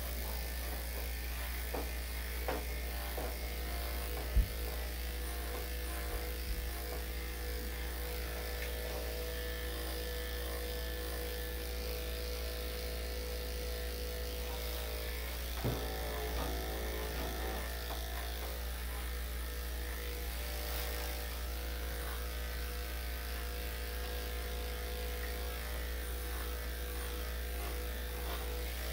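Electric dog grooming clippers with a #5 blade running steadily while trimming a dog's coat. A sharp click comes about four seconds in and a softer knock near the middle.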